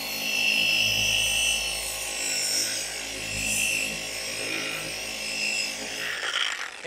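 Flex FX3331 24V cordless gear-driven orbital polisher running on its low speed setting with a foam pad on car paint, spreading polish. It makes a steady motor hum and whine that swells and fades as the pad is moved across the panel.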